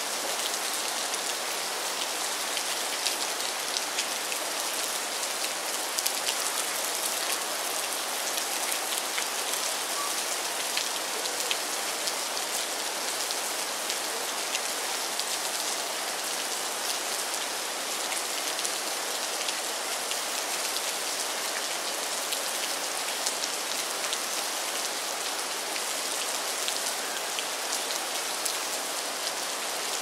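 Steady rain falling on the water of a river canal and its grassy banks, an even hiss with many scattered sharp ticks from single drops landing close by.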